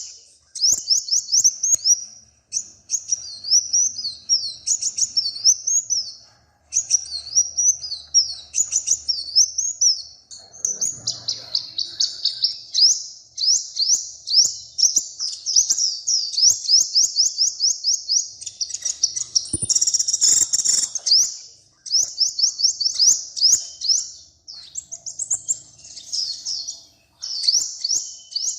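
A small songbird singing long runs of rapid, high chirping notes, with a few short pauses between phrases.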